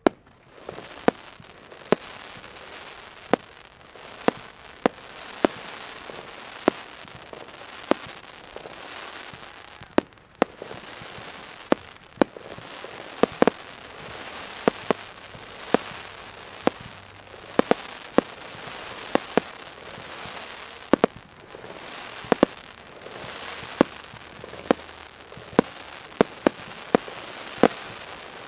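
Fireworks display: sharp aerial shell bursts go off about once or twice a second, sometimes in quick pairs, over a continuous hiss.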